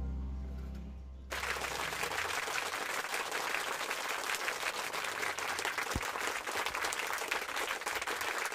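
The last notes of music fade out, then about a second in a crowd's applause starts suddenly and carries on steadily, many quick claps blending together.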